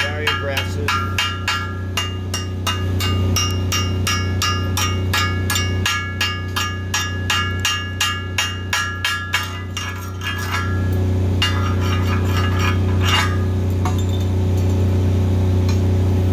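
A chipping hammer knocks slag off a fresh flux-cored (NR-305 Innershield) weld on a steel column splice. It makes quick, ringing metal strikes, a few a second, that stop about ten seconds in. Under it a Lincoln 305D diesel engine-driven welder runs with a steady low hum.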